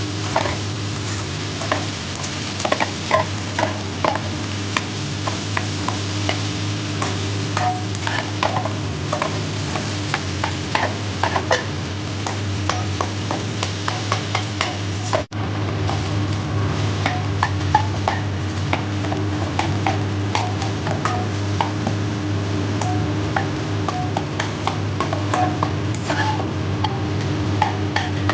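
A spatula stirring and tossing fried rice in a nonstick wok, with many short scrapes and clicks against the pan over a light sizzle and a steady low hum. The sound drops out for an instant about halfway through.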